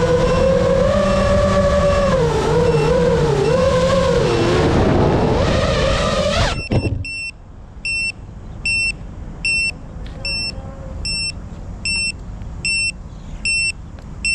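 FPV drone motors whirring, their pitch rising and falling with the throttle, cut off sharply about six and a half seconds in. After that a high electronic beep repeats steadily, a little more than once a second.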